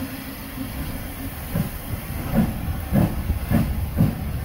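Steam locomotive pulling away: exhaust chuffs begin about one and a half seconds in, at about two a second, over a steady hiss of steam.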